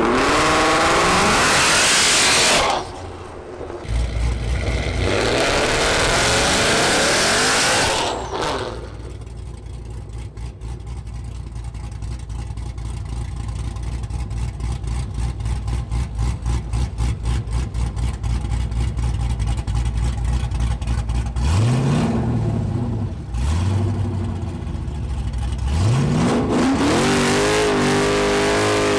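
Drag-prepped street cars at the starting line: engines revved hard in two loud stretches, then idling with an even pulse for about twelve seconds, two quick throttle blips, and a hard rev building again near the end.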